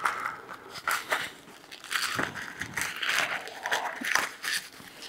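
A thin plastic pouch is torn open and crinkled by hand, making an irregular run of crackles and rustling.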